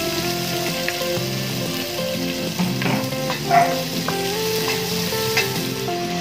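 Chopped garlic and onion sizzling in hot oil in a stainless steel pot, with a spatula stirring and knocking against the pot a few times, the loudest knock about three and a half seconds in.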